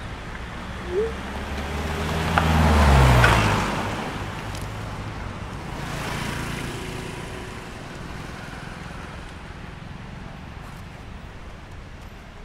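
A motor vehicle passing on the street, its engine note dropping in pitch as it goes by about three seconds in, over steady traffic noise; a fainter passing swell follows around six seconds.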